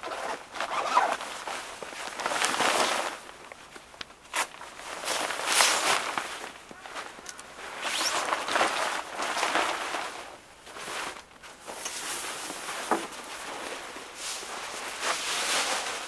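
Nylon jackets rustling and swishing as a shell jacket comes off and a down puffer jacket is pulled on, in irregular swishes with a few sharp clicks.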